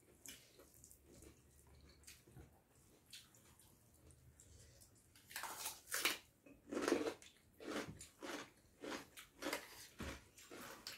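Several people eating rice and egg curry with their hands: wet chewing and mouth sounds, faint for the first half, then louder and coming thick and fast from about halfway through.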